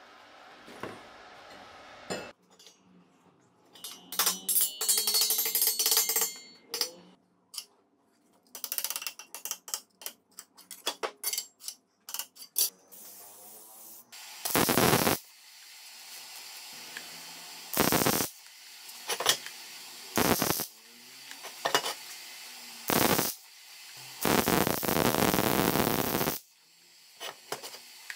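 Steel parts clinking and rattling as they are handled, then five short bursts of crackling, hissing welding, the last lasting about two seconds.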